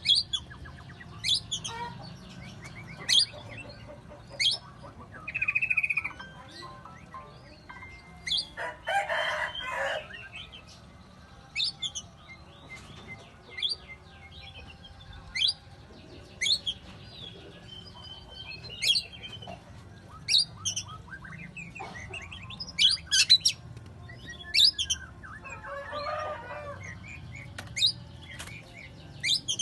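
Oriental magpie-robin singing: loud, sharp, high whistled notes and phrases repeated every second or two. Two longer, lower calls stand out, about nine seconds in and again near 26 s.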